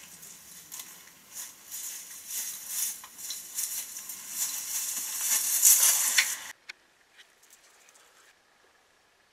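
Footsteps swishing through tall dry grass, growing louder as the walker comes close, then cutting off abruptly about six and a half seconds in. Only a few faint rustles and ticks follow.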